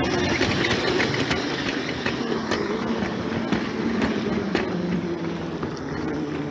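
A train running on its track: a steady rumble with a low hum that drifts slightly in pitch, and scattered clicks of the wheels over the track.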